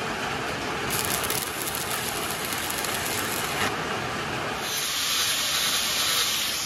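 Heavy rain pelting down on a metal roof, loud and steady. From about a second in, the crackling hiss of a stick-welding arc sits on top of it.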